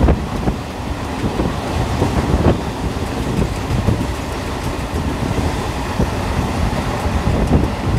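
Passenger train running at speed, heard from on board: a steady rumble of wheels on the rails with irregular knocks and rattles.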